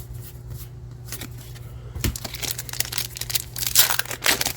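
Foil booster-pack wrapper crinkling as it is torn open. A dense run of crackles starts about two seconds in and is loudest near the end.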